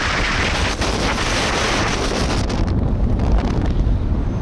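Wind buffeting the microphone of a camera on a moving car, over a steady low rumble from the road. The airy hiss drops away about two-thirds of the way through, and the low rumble carries on.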